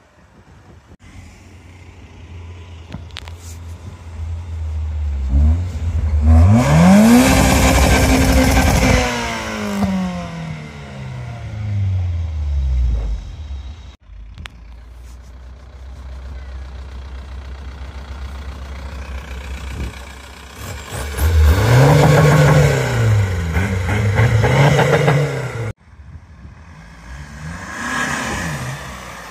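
Car engines running and being revved as cars pull away. About six seconds in, one rev climbs, holds and falls away. Later come two quick revs in a row, then a lighter one near the end.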